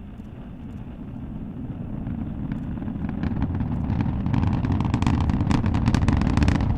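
Space Shuttle Atlantis's launch roar heard from miles away: the low rumble of the solid rocket boosters and main engines swells steadily louder, and sharp crackling builds up from about three seconds in.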